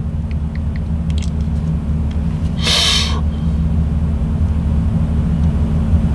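A steady low rumble, with a few faint taps in the first second and a half and a short burst of hiss about three seconds in.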